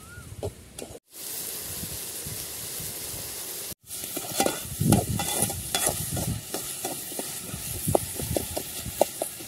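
Chopped onions and tomatoes sizzling in hot oil in a steel kadai, stirred and scraped with a perforated steel skimmer ladle that knocks against the pan. The sound drops out briefly twice, about one and about four seconds in.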